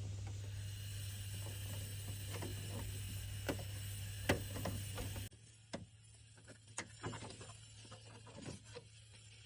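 Light plastic clicks and knocks from a new paper pickup roller being handled and fitted into a laser printer's feed area. The clicks are scattered and irregular. A low steady hum runs under them and cuts off abruptly about five seconds in, leaving only fainter clicks.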